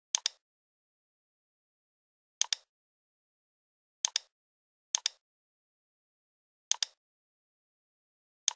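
Computer mouse clicking, six times at uneven intervals. Each click is a quick double tick of the button pressing and releasing, with dead silence between.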